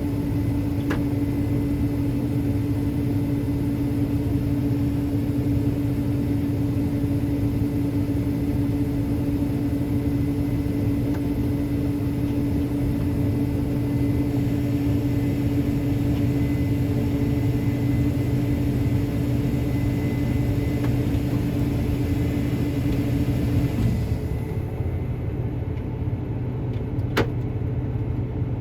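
Combine harvester running steadily while harvesting corn: a constant low machine hum with a steady higher tone that drops away near the end, followed by a single click.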